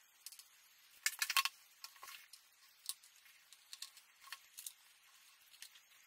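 Light, scattered clicks and taps of a tiny Phillips screwdriver working the bottom-case screws of an aluminium MacBook Pro, with small screws set down on a wooden desk. A quick cluster of louder taps comes about a second in, then single ticks every second or so.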